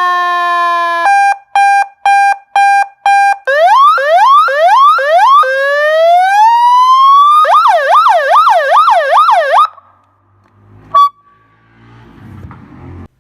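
Electronic seven-tone siren stepping through its tones: a steady, slowly falling tone, then about five short beeps, four quick rising whoops, a slow rising wail and a fast warbling yelp. It cuts off suddenly about ten seconds in. A click with a short beep follows, then faint rustling.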